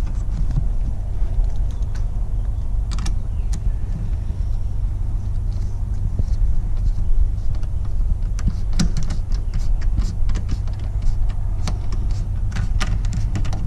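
Steady low rumble, with scattered light clicks and taps from screws being driven to fasten a taillight assembly, in small clusters about three seconds in, around nine seconds and near the end.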